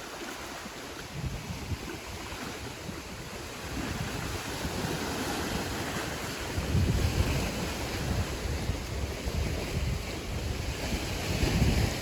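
Wind blowing and buffeting the microphone in gusts over a steady rushing hiss, the gusts growing stronger about four seconds in and again around seven seconds.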